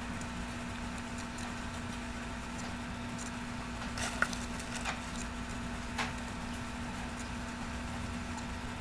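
Steady electrical hum with a few faint clicks and rustles, about four, five and six seconds in, from hands handling fabric flower petals.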